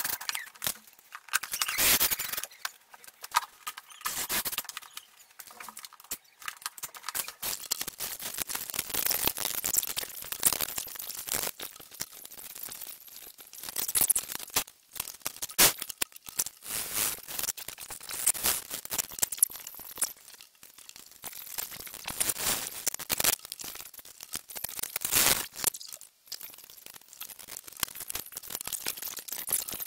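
Irregular clicks, knocks and scrapes of hands working with tools and plastic skirting board, with no steady motor sound.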